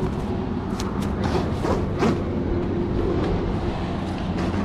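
Electric motor of a radio-controlled tunnel-hull boat running with a steady whine as the boat moves on the water.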